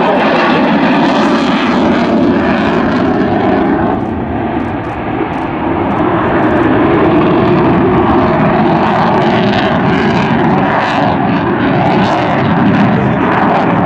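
Eurofighter Typhoon's twin EJ200 turbofan engines running at high power as the jet flies a display pass. The noise is loud and steady, dipping slightly about four seconds in.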